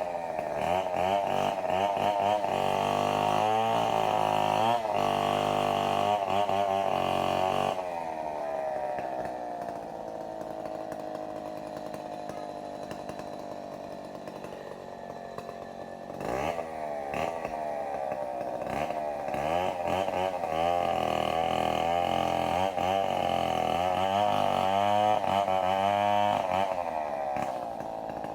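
Two-stroke chainsaw cutting wood, its engine pitch rising and falling as it works through the cut. It runs quieter and steadier for several seconds in the middle, then works hard again.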